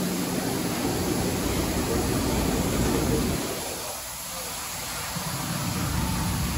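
4000-watt Trumpf L2530 flying-optic CNC laser cutting sheet metal: a steady rushing machine noise, whose low rumble drops away for about a second and a half midway and then returns.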